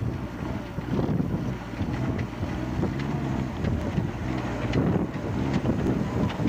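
4x4 vehicle's engine running steadily, with frequent short knocks and rattles over it and wind buffeting the microphone.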